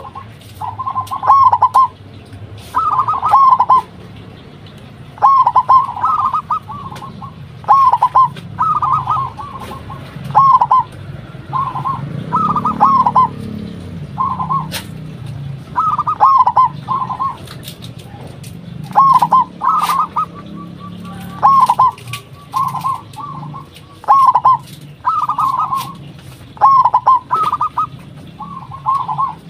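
Zebra dove (local perkutut) singing its cooing song: short rolling, warbling phrases repeated every second or two, with brief pauses between them. Faint scattered clicks sound among the calls.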